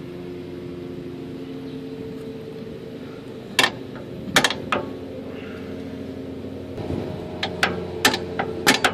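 Hammer striking a punch against a metal axle mounting tab to mark a spot for drilling. It gives a few sharp metallic hits around the middle, then a quicker run of about six hits near the end, over a steady low mechanical hum.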